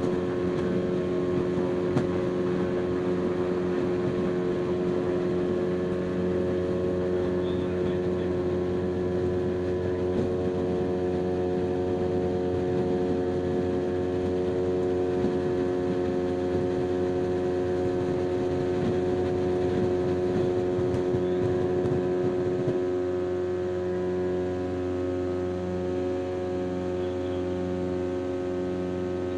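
Lake Amphibian's pusher engine and propeller running steadily, heard from inside the cabin, with a rushing of water along the hull. About 23 seconds in the rushing drops away, leaving the engine hum with a slow, even pulsing.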